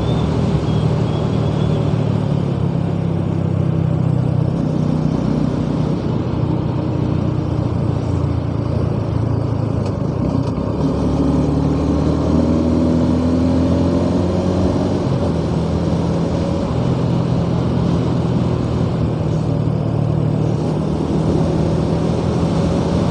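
Suzuki Gixxer SF250's 249 cc single-cylinder engine running steadily while the bike is ridden on the road, its pitch drifting slightly up and down with speed.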